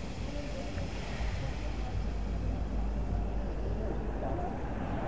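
Steam locomotive letting off steam in a steady hiss over a low rumble, with a crowd murmuring.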